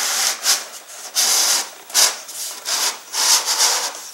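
A fin jig sliding and scraping against a model rocket's paper body tube and fin as it is fitted over them, a series of short rubbing scrapes.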